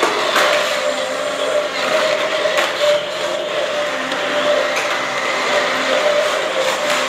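Small electric gear motors of remote-control toy dinosaurs whirring steadily, with a few sharp plastic clicks and knocks as the toys move.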